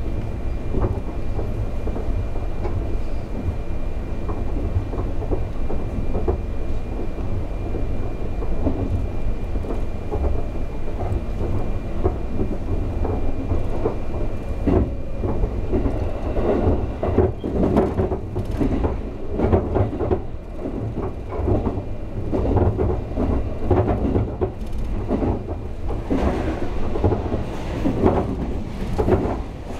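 Cab-view cabin of a 251 series Super View Odoriko electric express train running at speed, a steady low rumble. From about halfway through, the wheels knock and clatter over rail joints and pointwork, more often toward the end.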